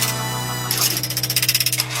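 Background music over a steady pitched hum, which turns into a fast, regular pulsing about halfway through.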